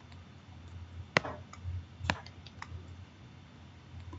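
A few sharp clicks and light taps on a tablet computer as it is written on and worked. The loudest click comes about a second in and another about two seconds in, with softer ones between them, over a low steady hum.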